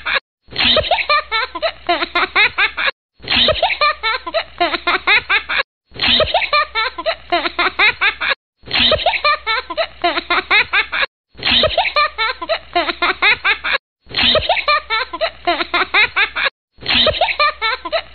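High-pitched giggling laughter from a short sound clip played on a loop, with the same burst of rapid giggles repeating about seven times, each cut off by a brief moment of silence.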